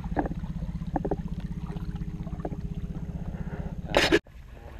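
A hooked redfish splashing at the surface beside the boat, with one short, loud splash about four seconds in, over a steady low pulsing rumble.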